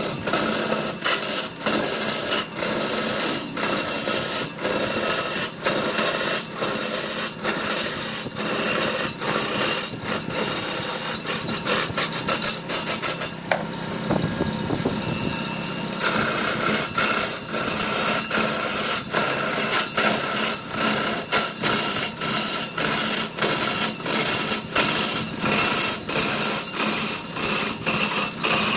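A woodworking tool cutting into wood in regular strokes, about two a second, each with a short high scrape; the strokes quicken briefly, stop for about two seconds leaving a steady hiss, then resume.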